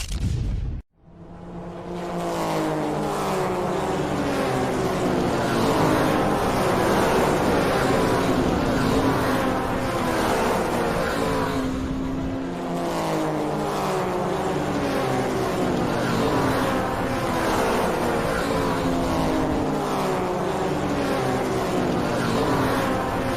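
Several radio-controlled race cars running together, their motors' pitches rising and falling over and over as they accelerate and slow. A brief gap of silence comes about a second in, before the sound picks up.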